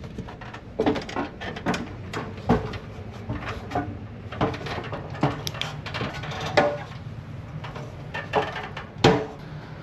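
Footsteps and a door being handled: irregular knocks and clunks over a steady low hum, with one loud knock near the end.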